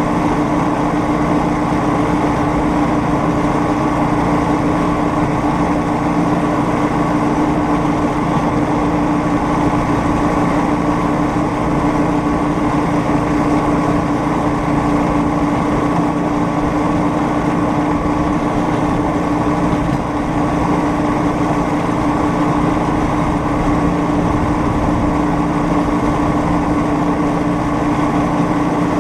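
Small engine of a homemade rail speeder running steadily as the cart rolls along the track, its pitch holding constant.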